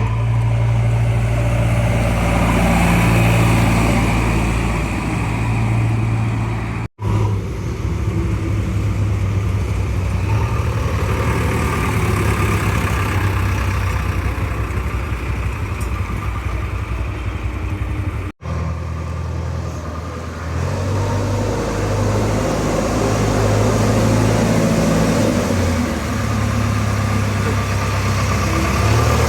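JCB 3DX backhoe loader's diesel engine running steadily at work, its pitch shifting slightly now and then. The sound cuts out for an instant twice.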